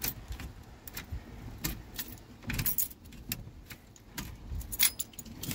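Keys jangling on the ring and a scatter of light clicks as the ignition key of the 1974 Chevy C30 is worked, with no cranking and no engine starting: the battery is too flat to turn it over.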